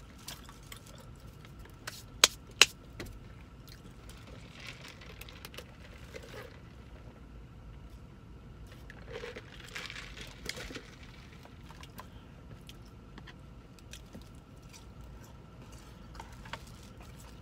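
Quiet eating sounds inside a car: chewing, with two sharp clicks a couple of seconds in, and a soft sip through a drinking straw about ten seconds in.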